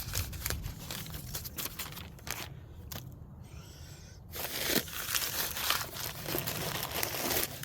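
Paper packing being handled while a box is unpacked: crinkling and rustling with small knocks, louder and busier from about halfway through.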